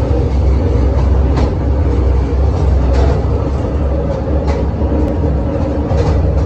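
Interior sound of a MÁV Bzmot diesel railcar running at speed: a steady, loud low rumble of engine and wheels, with a short sharp click from the wheels over a rail joint about every one and a half seconds.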